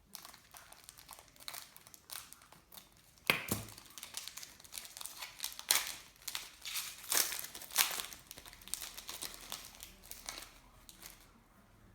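A trading-card pack's wrapper being torn open and crinkled by hand, a run of irregular crackles with a few sharper rips.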